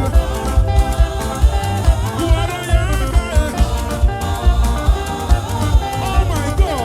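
Live gospel band music with a steady, driving beat: drums and bass under keyboard or guitar lines.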